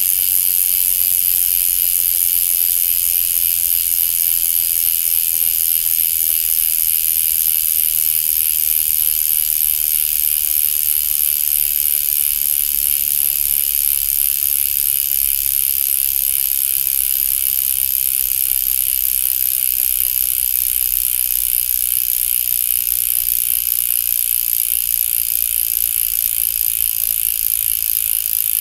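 Bicycle rear hub freewheeling: the freehub's ratchet clicking so fast that it blurs into a steady, high buzz, fading slightly toward the end.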